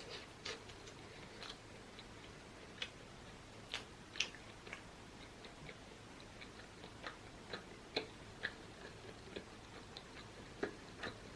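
Close-miked eating sounds: small, irregular mouth clicks and smacks of chewing, a few of them louder and sharper.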